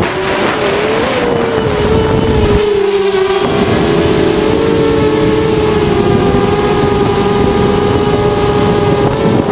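ZMR250 quadcopter's motors and 5040 props giving a steady whine that wavers slightly in pitch with throttle, over a dense rush of wind noise on the onboard microphone.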